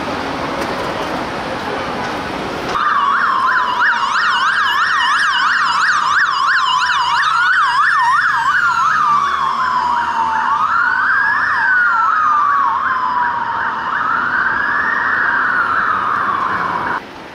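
Traffic noise, then about three seconds in, police sirens start: a fast yelp and a slow rising-and-falling wail sounding together. The yelp drops out after the middle, leaving the wail alone, and the sound cuts off abruptly near the end.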